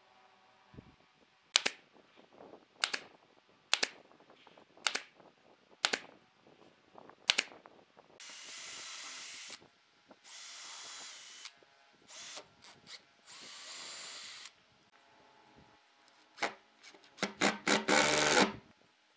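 Six sharp knocks, then a cordless drill running in four short spells of about a second each, drilling a pilot hole into a wooden disc. Near the end the drill drives a screw into the wood in a few quick, loud bursts.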